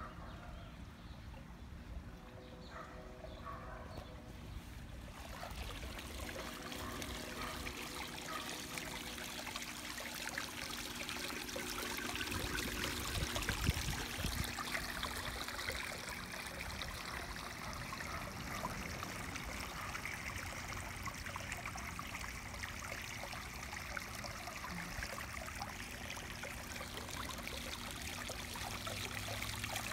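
Tiered garden fountain trickling, water spilling from leaf-shaped basins into its pool. The splashing comes up about five seconds in and then runs steadily.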